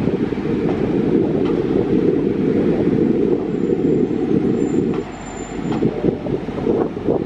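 Régiolis regional TER multiple-unit train passing, a steady low rumble of wheels and running gear. A faint high-pitched squeal comes in about halfway through.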